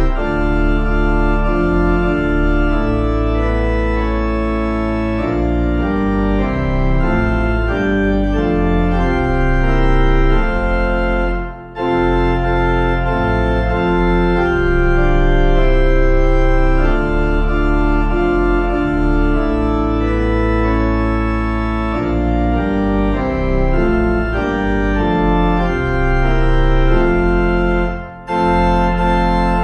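Organ playing a hymn tune in held chords that change every second or so, with a short break between phrases about twelve seconds in and another near the end.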